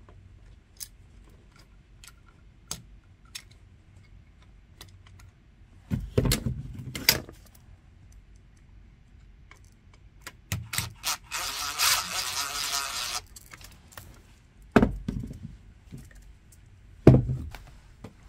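Handling and screwdriving sounds from a new electrical receptacle being pressed into a wall box and screwed down: scattered clicks and several sharper knocks, with a scraping noise lasting about two seconds midway.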